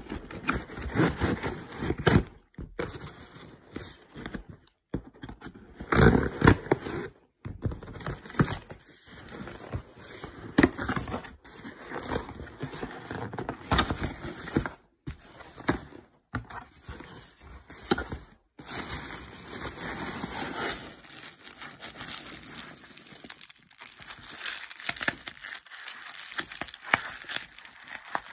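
Hands opening a cardboard box: flaps and inner cardboard rustling, scraping and crackling in irregular bursts, then plastic bubble wrap crinkling as a wrapped item is handled in the last part.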